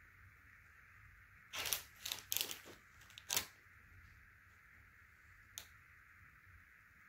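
Cardboard box being handled and set aside: a quick run of sharp rustles and taps over about two seconds, then one more short click a couple of seconds later.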